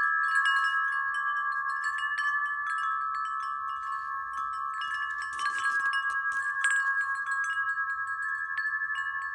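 Aluminium-tube wind chimes ringing: several tubes sound together as a steady chord, with occasional light new strikes, and the ringing slowly fades.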